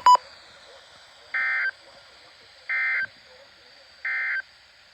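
A short, loud double beep, then three identical short warbling bursts of Emergency Alert System digital data about a second and a half apart. This is the SAME end-of-message code that closes an emergency alert broadcast.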